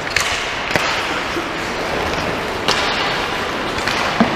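Four sharp clacks of hockey sticks and puck on the ice, over a steady hiss of rink noise.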